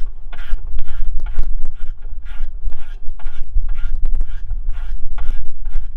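Ratchet wrench being worked back and forth on a bolt, a rasping run of clicks about two to three strokes a second. Wind rumbles on the microphone underneath.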